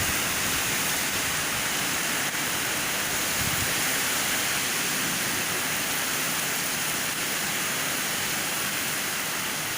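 Heavy rain pouring down in a strong wind during a thunderstorm, a steady unbroken hiss of downpour.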